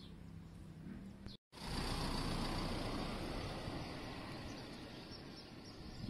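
Outdoor ambience: a few faint bird chirps over a low steady hum, then, after a brief dropout about one and a half seconds in, a louder even rushing noise that slowly fades over the next few seconds.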